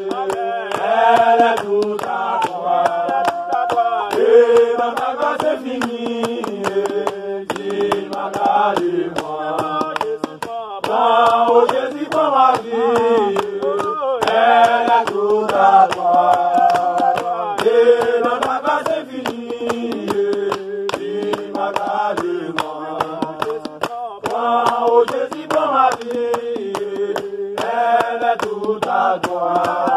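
A small group of men and women singing a Haitian Creole worship song together without instruments, clapping their hands in a steady beat.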